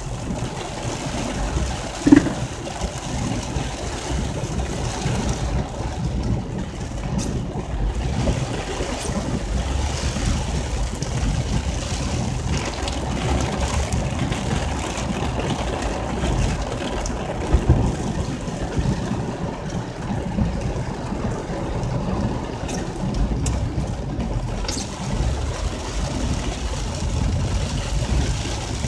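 Storm rain and wind from the tail of Hurricane Hermine beating on a car, heard from inside: a steady rushing noise with a deep rumble underneath. A single brief, sharp sound stands out about two seconds in.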